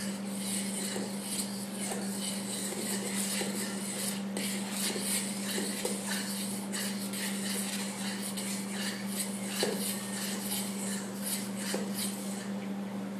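A metal spoon stirring chocolate cake batter in a stainless steel mixing bowl: a steady run of scraping and small clinks against the bowl's sides, with a few louder knocks. A steady low hum sits underneath.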